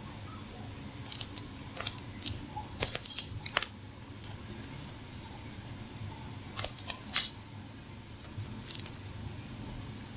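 A small jingle bell in a cat toy rattling and jingling in three bursts as it is batted about: a long one of about four seconds, then two short ones, with a few light knocks among them.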